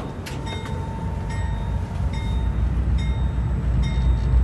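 GE Dash 9 locomotive's 16-cylinder diesel engine running, its low rumble growing louder from about two seconds in as the engine loads up. A steady high tone and short high chirps, repeating a little faster than once a second, sound over it.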